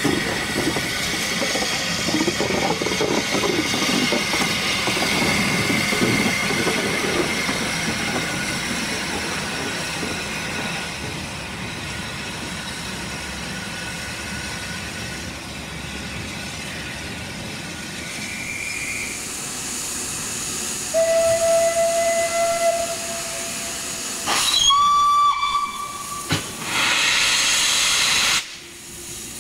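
Steam locomotives hissing and working steam, then several whistle blasts of different pitch, the loudest near the end. A loud burst of escaping steam follows and stops abruptly.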